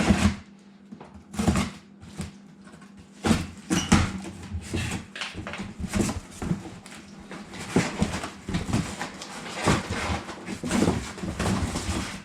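Irregular knocks, clatter and rattles of dishwasher parts being handled, as the replacement pump and motor assembly is brought in and set beside the old one.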